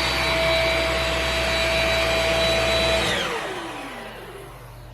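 Shark Rocket HV301 stick vacuum's motor running with a steady high whine on its higher of two speeds, then switched off about three seconds in, the whine falling in pitch as the motor spins down.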